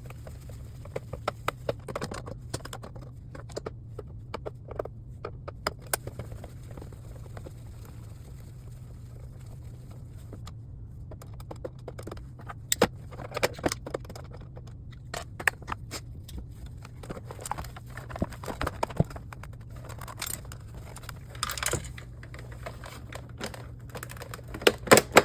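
Scattered small clicks and scrapes of screws being undone and a plastic monitor stand being handled, in irregular clusters with a quieter pause midway, over a steady low hum.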